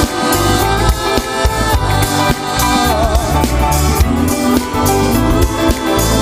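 Live band music: drum kit, electric guitar and grand piano playing on, with a held, wavering sung note partway through.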